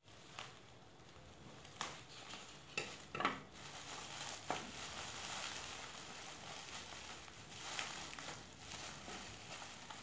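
Thin black plastic packaging bag crinkling and rustling as it is handled and unwrapped, with a few sharper crackles in the first half.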